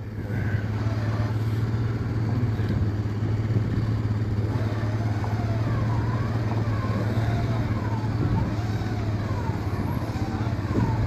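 A vehicle engine running steadily, pulling the wheeled ice-fishing house across the lake ice after it was winched out of the crack.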